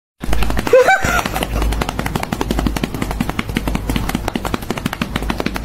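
A cat held close to the microphone purring loudly, a fast even rattle with a deep rumble under it, with a short meow about a second in.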